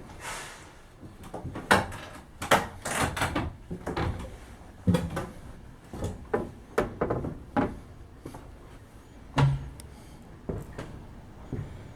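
Irregular knocks and clunks, a dozen or more over several seconds, thinning out near the end.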